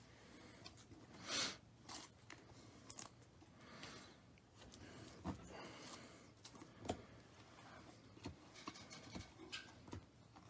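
Panini Prizm basketball trading cards handled and gathered into a stack: soft sliding, brushing and light tapping of cards, with one louder swish about a second and a half in.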